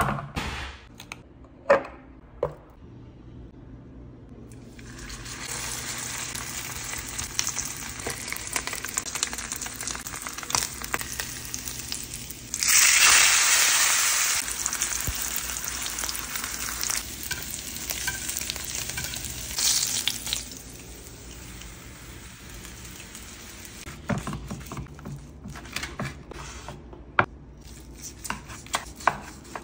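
A ribeye steak sizzling in beef tallow in an enameled cast-iron skillet, a steady frying hiss that swells loudest for about two seconds near the middle as the meat is moved in the hot pan. It begins with a few sharp knocks as the steak is handled on a wooden board. After the sizzle stops, a chef's knife clicks and taps against the wooden cutting board as the steak is carved.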